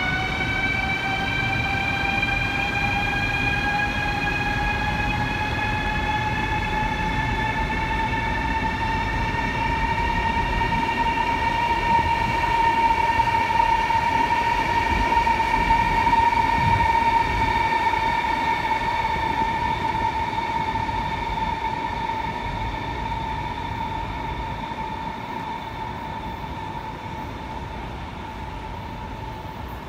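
Chinese CRH high-speed electric train moving through a station, its traction-motor whine rising in pitch over the first ten seconds or so and then holding steady as the train gathers speed, over a steady rumble. It grows louder toward the middle and fades away near the end.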